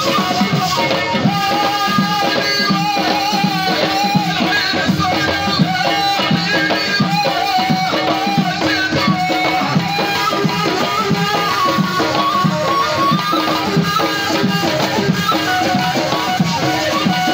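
Live Tunisian folk music: a gasba, the end-blown cane flute, plays a wavering melody over a steady rhythm on a bendir frame drum.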